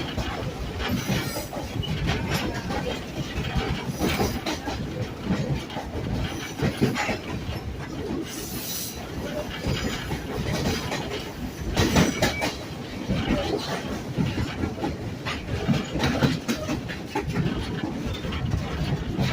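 Passenger train rolling along the track, heard from aboard a passenger car: a steady rumble with irregular clacking and rattling from the wheels and cars, and a louder clack about twelve seconds in.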